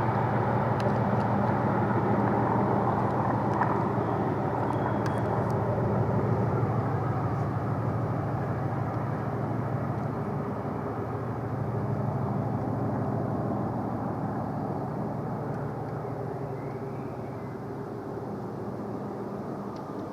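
Class 37 diesel locomotive working hard, its engine a loud, steady drone that slowly fades as it pulls away.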